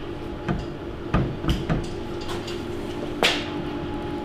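A VW T3's loose rear wheel is rocked on the lift, giving a series of clunks and knocks with one louder knock near the end. The hub is loose because its central axle nut has worked loose. A steady hum sets in about halfway through.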